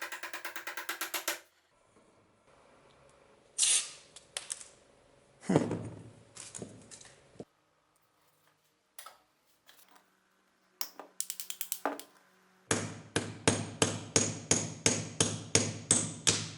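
Hammer blows on metal parts of an old powder-actuated tool. A fast run of taps comes at the start, scattered single knocks follow, and a steady series of about three to four blows a second runs near the end.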